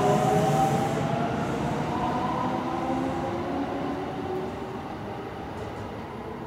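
Kintetsu 3200 series train accelerating away on GTO-VVVF inverter control. The inverter whine climbs in pitch in several tones over the first second or two, then the motor whine and wheel running noise fade as the train pulls away.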